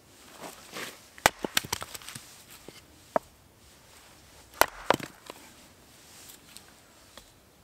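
Hatchet chopping and splitting small firewood, including a birch log, on a wooden chopping block: several sharp knocks, the first followed by a quick clatter of smaller clicks, and two strong strikes close together about halfway through.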